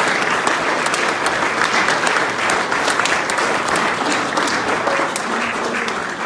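Audience applauding: a dense patter of many hands clapping, easing slightly near the end.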